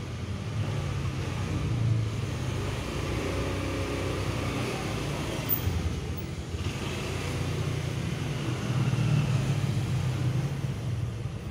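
A steady low rumble, like a motor vehicle engine running nearby.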